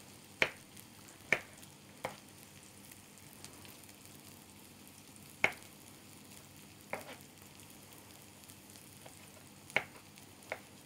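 Knife cutting okra finely on a cutting board: about seven sharp knocks at an uneven pace. Underneath is a low, steady sizzle of onions softening in a frying pan.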